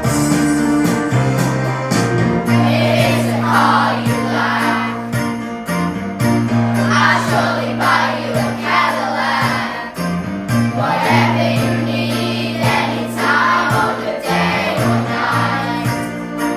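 Upbeat music track with jingling bells and singing voices over held bass notes that change every couple of seconds.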